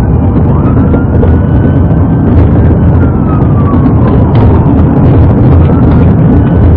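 Police cruiser siren wailing in slow rising and falling sweeps, heard from inside the pursuing car over loud road and engine noise at highway speed.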